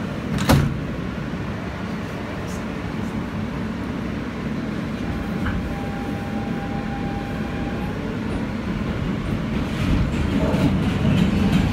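New York City subway train running through the station and picking up speed, its rumble growing louder toward the end. A sharp knock sounds about half a second in, and a faint steady whine holds for a few seconds midway.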